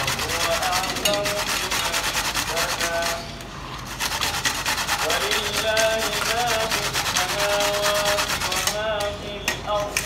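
Raw beetroot grated on a flat metal hand grater: fast, repeated rasping strokes of the root over the metal teeth, with a brief pause about three seconds in.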